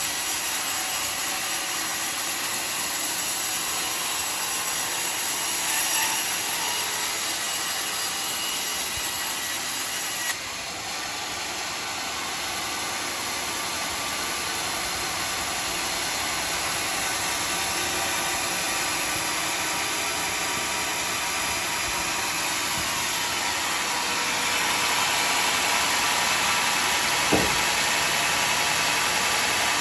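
Homemade bandsaw sawmill running with its blade sawing through a teak log, a steady loud noise that dips suddenly about ten seconds in, grows louder near the end, and has a short knock shortly before the end.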